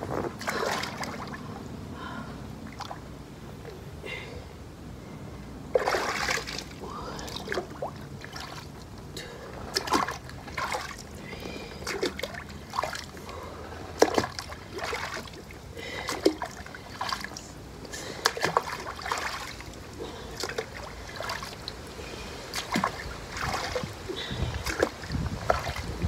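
Water splashing and sloshing in a small inflatable above-ground pool as a person twists and sweeps her arms through it, in irregular splashes with a few louder ones.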